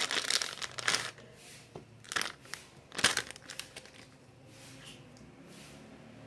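Clear plastic packaging crinkling and rustling as it is opened by hand, busiest in the first second and again around two to three seconds in, then going quiet.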